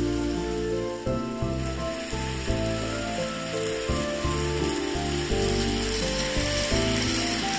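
Background music with held notes over a changing bass line, above a steady hiss and light clicking from an N-gauge model train running on the track.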